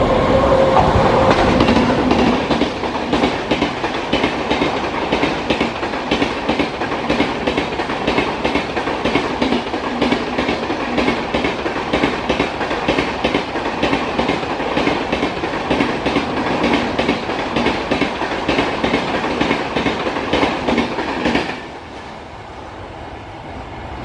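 Express passenger train coaches rolling past at speed, the wheels clicking over the rail joints in a fast, steady clickety-clack, with the tail of a locomotive horn note fading in the first second. The clatter stops suddenly near the end as the last coach clears.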